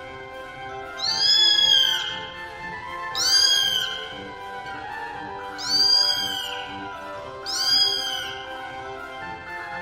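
A cat meowing four times, each meow about a second long and rising then falling in pitch, over soft background music.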